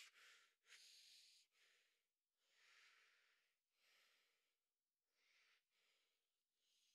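Faint, heavy breathing of a gagged man through his nose: a run of short, uneven breaths, each a soft puff of air, with brief gaps between them.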